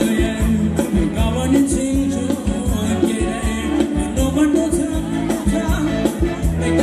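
Live band music for ramwong (Thai circle dance), with a steady drum beat and bass under the melody.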